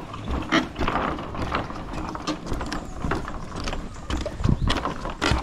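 Footsteps knocking on the wooden planks of a suspension footbridge, with clatter from the boards as the deck is walked on.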